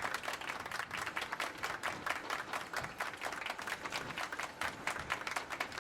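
Applause: many hands clapping in a dense, irregular patter.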